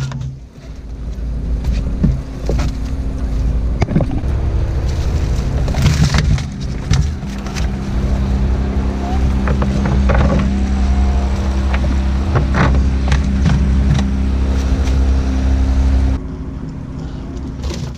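Cast net heaped on a boat deck with carp flopping and slapping in it, the net's lead weights knocking and clattering. A steady low hum runs underneath and cuts off abruptly near the end.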